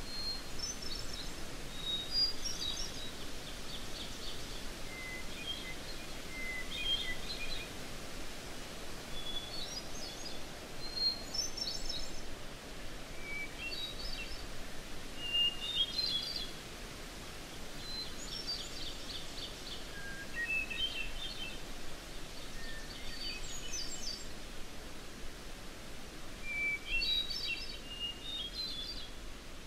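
Field recording of wild songbirds singing: a short phrase about every two seconds, some phrases ending in a quick run of repeated notes, over a steady background hiss.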